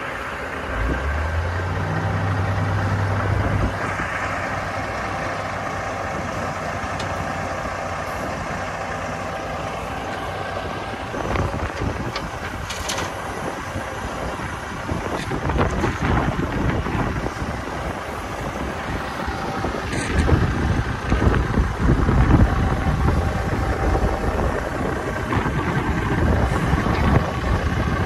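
Diesel engines of a Komatsu excavator and a tri-axle dump truck running, with an engine note that rises about a second in and drops away a few seconds later. From about halfway on come rougher, louder surges as bucketloads of dirt are dropped into the steel dump bed.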